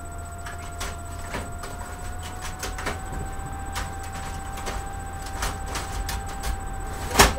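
Office printer running: a steady whine that rises slightly in pitch about three seconds in, with scattered clicks and a sharp, loud clack near the end.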